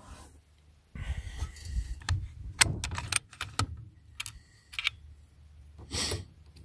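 Handling noise: a quick run of sharp clicks and light metallic rattles starting about a second in, then a short burst of rustling near the end.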